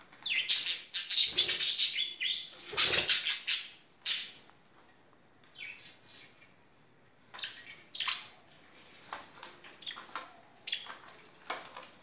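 Pet budgerigars chirping in short high bursts, with wing fluttering in the first few seconds; the chirping stops for a few seconds about halfway, then resumes more sparsely.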